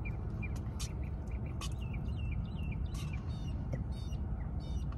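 Small birds chirping and calling in many short, quick notes, over a steady low rumble.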